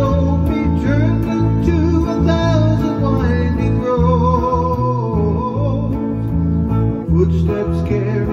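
A guitar strummed over a steady electric bass line, played live in a country style.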